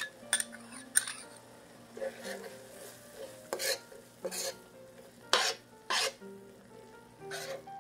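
A metal spoon scrapes ginger-garlic paste out of a small ceramic bowl with a couple of sharp clinks near the start. It then stirs and scrapes the paste through thick onion masala in a stainless steel pan, in separate strokes about every second.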